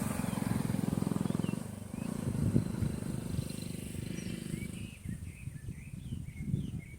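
Small birds chirping in short, scattered calls over a low, pulsing rumble. The rumble dies away about five seconds in, and the chirps grow busier toward the end.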